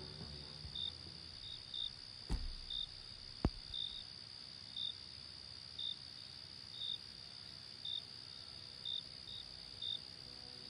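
Crickets chirping: short high chirps about once a second over a steady high insect trill. Two sharp clicks come a little over two and three and a half seconds in.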